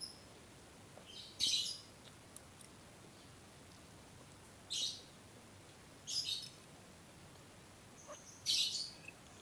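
Close-up mouth sounds of someone eating fried instant noodles: four short, wet, smacking bursts of chewing a few seconds apart.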